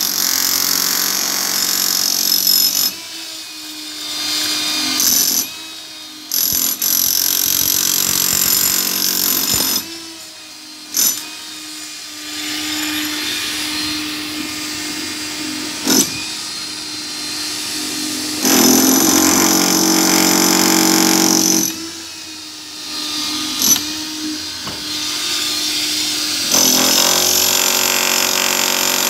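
Electric demolition hammer chiselling into a concrete wall, running in long spells with several short stops.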